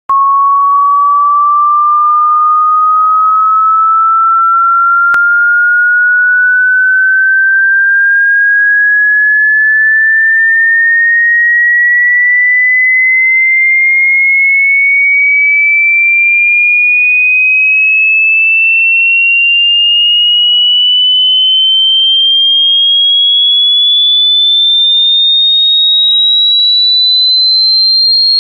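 An electronic sine-wave tone played as a tinnitus-like ringing: a single high, pure whistle that glides slowly and steadily higher in pitch throughout, with a slight wobble.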